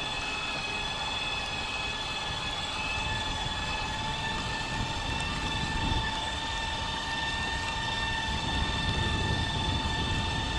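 Homemade electric outboard, an HRS 775 brushed drill motor and gearbox driving an 8x4 model aircraft propeller, running at steady speed with an even high whine. Low wind rumble on the microphone underneath.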